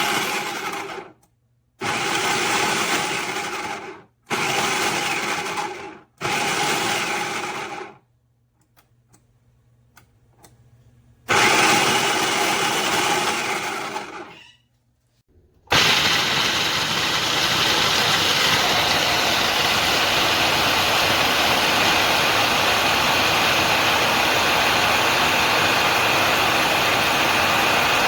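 Small electric food chopper motor running in short pulses of about two seconds, four times in a row. A few faint clicks follow in a short pause, then another pulse. After that the motor runs continuously.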